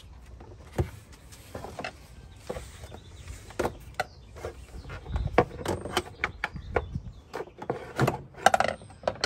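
Irregular clicks, knocks and scrapes of a hard plastic air filter housing and intake duct being handled and worked loose with a screwdriver, with the loudest knocks near the end.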